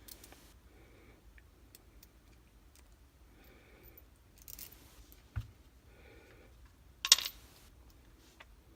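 Faint handling sounds of small gun parts being fitted by hand, with a short knock about five seconds in and a brief sharper click or clatter about seven seconds in.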